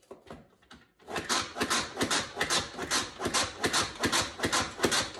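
Manual pump food processor being pumped by hand, its plunger and spinning blades clattering as they chop vegetables. It runs in quick, even strokes, about four a second, starting about a second in.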